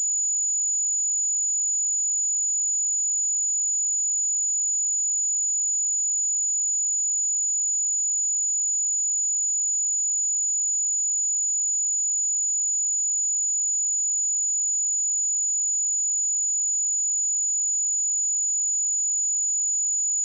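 A steady, high-pitched pure sine-wave test tone at 6916 Hz, held at one pitch and level throughout.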